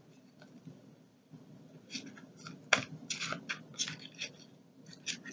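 A deck of tarot-style cards being shuffled by hand: a run of quick, dry slaps and clicks as the cards are passed from hand to hand. It is sparse for the first couple of seconds and busiest from about two to four and a half seconds in.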